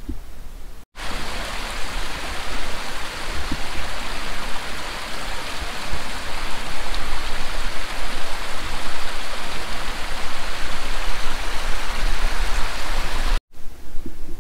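A moorland burn rushing steadily over rocks, an even, dense hiss of running water that starts abruptly about a second in and cuts off abruptly about a second before the end.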